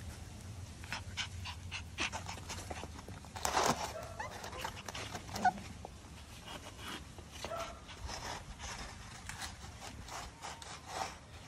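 Miniature Schnauzer puppies panting and sniffing, with a few short whimpers. Scattered light clicks and scuffs come from the plastic egg tray the puppies are nosing, with a brief louder rustle about three and a half seconds in.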